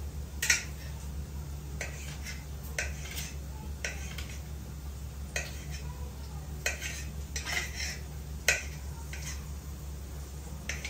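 Kitchen knife clicking and scraping on a ceramic plate while chopping boiled chicken liver into small pieces. About a dozen irregular sharp knocks, the loudest about half a second in and near the end.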